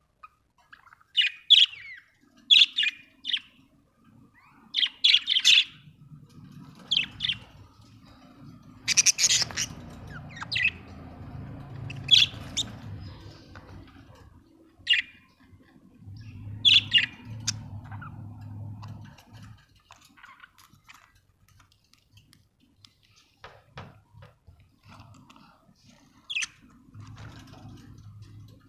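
Budgerigars chirping and squawking in short, sharp calls, often in quick clusters of two or three. The calls are frequent in the first half and become sparse after about 17 seconds, with a low hum that comes and goes underneath.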